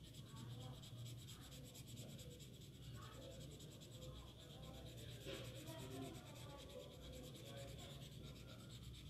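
Faint scratching of a felt-tip sketch pen rubbing over paper as an area is coloured in.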